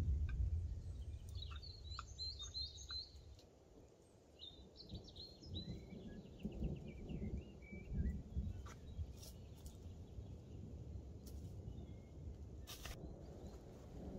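Small birds singing: a short run of quick chirping notes, then a longer run of notes that steps down in pitch. A low rumbling background runs under the song, and a few sharp ticks come near the end.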